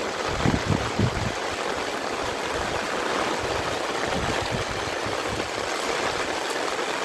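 Steady rushing of running water, with a couple of brief soft thumps about half a second and one second in.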